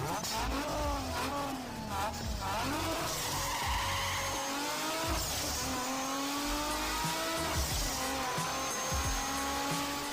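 A motor vehicle engine revving, its pitch rising in several long sweeps that each break off and start again lower, as when shifting up through gears.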